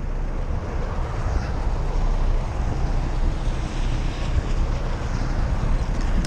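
Jeep Cherokee driving off-road, its engine running as a steady low rumble, with wind buffeting the microphone.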